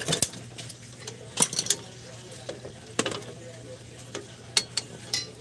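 Metal clicks and clinks from a Toyota HiAce rear drum-brake shoe being worked free of its handbrake cable: a handful of scattered, sharp clicks over a faint steady low hum.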